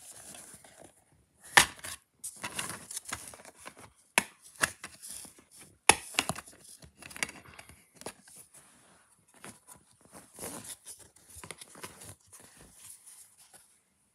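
Plastic DVD case and its paper insert being handled: a string of sharp clicks and knocks, the loudest about one and a half and six seconds in, amid paper rustling.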